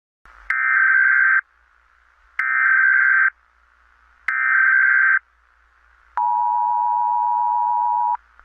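Emergency Alert System alert tones: three short, loud bursts of SAME header data tones about two seconds apart, then the two-tone EAS attention signal held steady for about two seconds before it cuts off.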